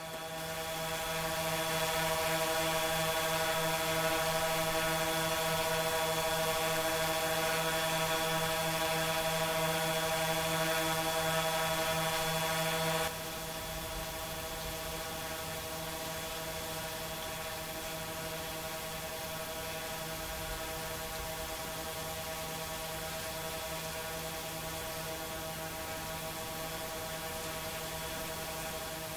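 Quadcopter drone in flight: the steady, even-pitched buzz of its propellers, made of many tones together, dropping in level about thirteen seconds in.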